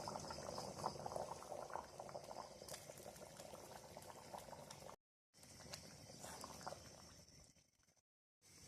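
Duck curry bubbling as it boils in the pot, a dense irregular popping of thick liquid. It cuts out briefly twice, about five and eight seconds in.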